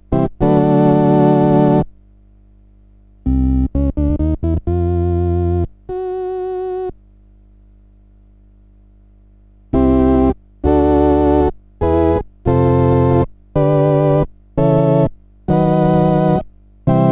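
Galanti (GEM) Caravan R6 portable electronic organ being test-played: short chords and a quick run of notes, one softer held note, a pause of a few seconds, then a string of chords about once a second, the tones wavering with vibrato. A steady low hum carries on between the notes.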